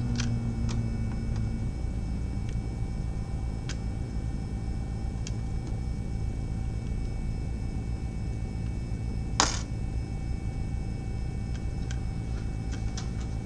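Small clicks and taps of hands handling a laptop motherboard on a workbench, with one sharper click about nine seconds in, over a steady low hum.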